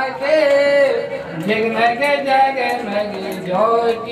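Voices singing a Hindu aarti hymn, with long drawn-out, wavering notes.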